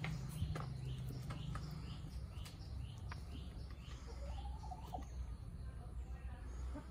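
A small bird chirping over and over, two or three short high chirps a second, fading out after about five seconds. A chicken gives a brief wavering low call about four seconds in, over a low steady rumble.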